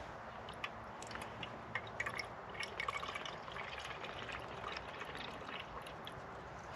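Water dripping and trickling in small, irregular drops.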